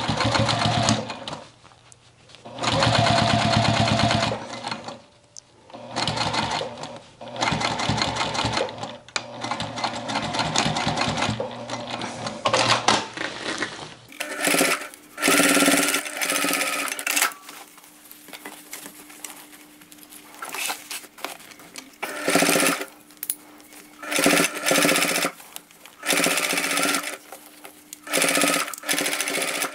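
Domestic sewing machine stitching a seam in short runs, stopping and restarting many times.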